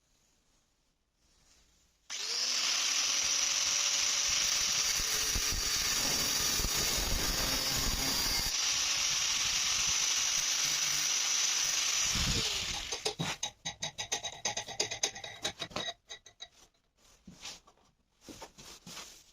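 A power tool starts about two seconds in, runs steadily for about ten seconds, then stops. It is followed by scattered clicks and knocks of handling.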